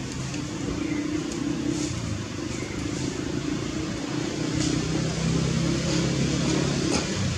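A steady low mechanical drone, with a deeper hum growing stronger about four seconds in and a few faint ticks above it.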